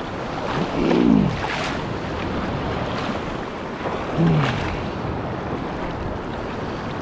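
Surf washing and water sloshing close against the camera as a person wades out through waves, with two louder surges about one second and about four seconds in.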